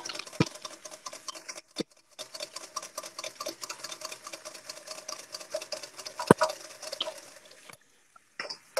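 Wire whisk beating egg yolks in a metal bowl over heat, cooking them into a sabayon for hollandaise: a fast, continuous run of light scraping clicks of wire on metal, with a few louder knocks against the bowl. The sound drops out briefly near the end.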